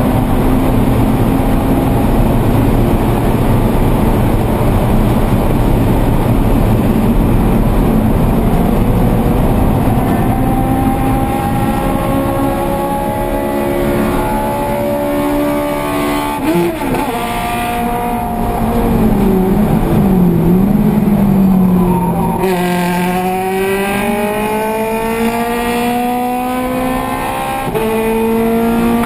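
Scion FR-S race car's 2.0-litre flat-four engine at racing revs, heard from inside the cockpit. The engine note holds high and steady, dips and wavers about halfway, then climbs steadily for several seconds and drops sharply once near the end, an upshift.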